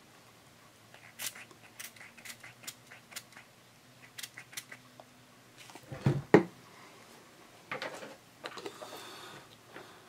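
Short, sharp spritzes of a hand pump spray bottle of mold release into a silicone rubber mold, about seven over the first five seconds. About six seconds in come two louder thuds as the bottle and mold are set down on the table, then light rustling.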